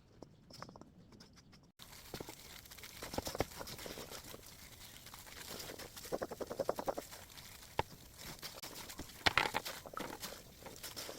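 Food-prep handling sounds: many small clicks and rattles, like dry beans and utensils knocking in a bowl. They come in clusters, with a sudden change about two seconds in and the loudest knocks near the end.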